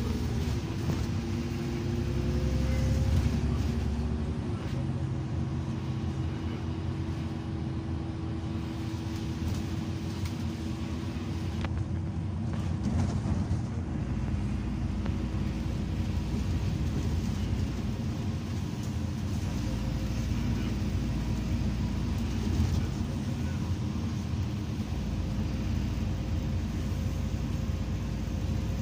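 City bus heard from inside the passenger cabin while driving: a steady engine drone and road rumble with a faint steady whine.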